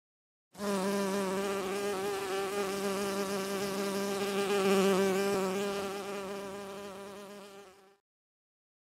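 A bee buzzing steadily, its pitch wavering slightly. It starts about half a second in, swells about halfway through, then fades away and stops near the end.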